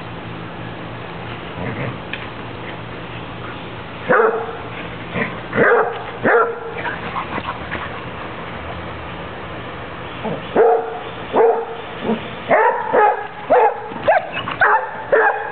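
Dogs barking during rough play: a few single barks, then a quicker run of about ten barks in the last five seconds.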